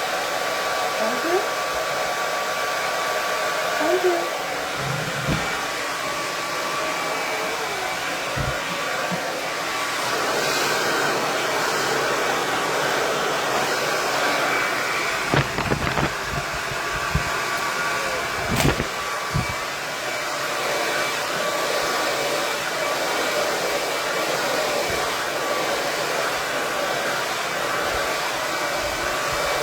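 KISS 1875 Watt Pro Tourmaline Ceramic hair dryer blowing steadily, a loud rush of air with a faint steady whine, with a few light knocks from handling partway through.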